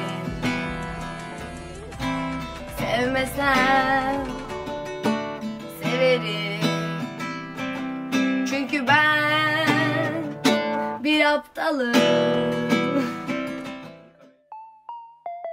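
Acoustic guitar strummed and picked, with a voice singing a melody over it that wavers on its held notes. About fourteen seconds in, the guitar and voice stop and short plinking keyboard notes begin.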